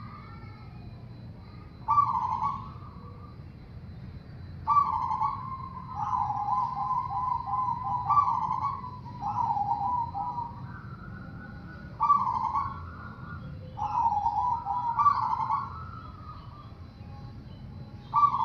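Zebra dove (perkutut) cooing: bouts of soft, quickly trilled coos repeated every few seconds, with a longer run of trilling from about five to ten seconds in.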